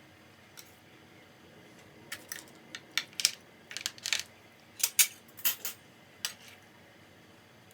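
Kitchenware being handled: a quick run of sharp, light clinks and taps, like cutlery or dishes knocking together, clustered in the middle of the stretch.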